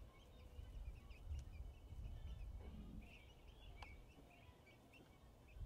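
Faint, repeated short peeps of three-week-old chicks, over a low rumble.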